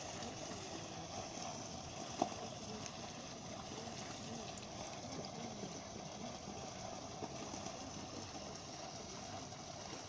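Water falling steadily down a garden waterfall feature, a 'water fireplace', with an even rush of splashing water. A single short click about two seconds in.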